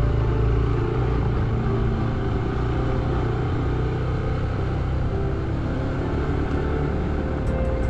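Motorcycle ridden along a gravel track: the engine runs steadily under continuous road noise.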